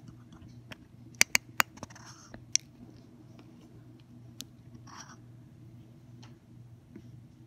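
A steady low hum with a few sharp clicks: three close together a little over a second in and one more shortly after. Two soft rustles come a couple of seconds apart.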